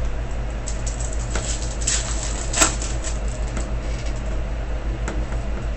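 Foil trading-card pack wrapper crinkling and tearing open: a run of crackles, the sharpest about two and a half seconds in, over a steady low hum.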